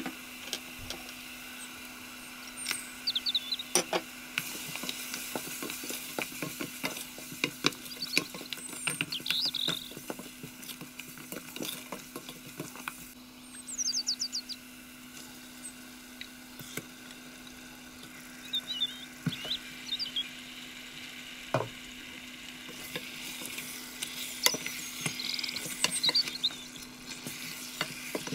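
Chopped onions and spices sizzling in oil in a stainless steel pot while a wooden spoon stirs, scrapes and knocks against the pot; later raw chicken pieces are turned through the mixture. A steady low hum runs underneath throughout.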